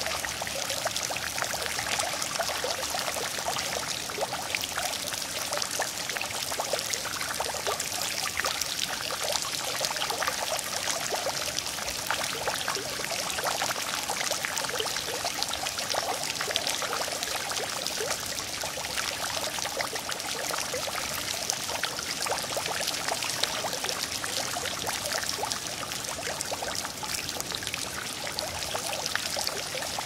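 Small water fountain running: water falling steadily and splashing into a basin, a constant hiss of many tiny splashes with almost no low rumble.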